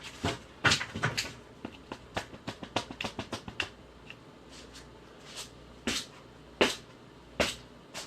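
Quick irregular knocks and scratches from a stick being buried by hand: a busy flurry for the first few seconds, then a few louder single knocks with pauses between them.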